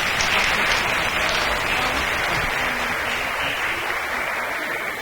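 An audience of schoolchildren applauding after a classmate is recognised, steady clapping that starts just before and fades out near the end.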